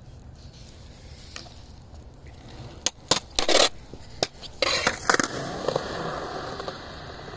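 Skateboard on concrete: a run of sharp clacks and scraping bursts of the board hitting the ground, loudest about three to five seconds in, then the wheels rolling steadily.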